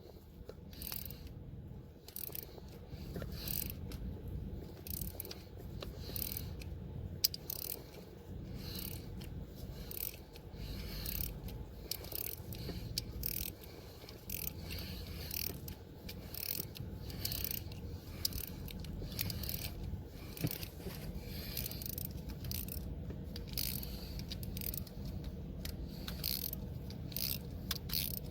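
Ratchet wrench clicking in short, repeated strokes, about one or two a second, as a broken bolt is worked out by a nut welded onto it.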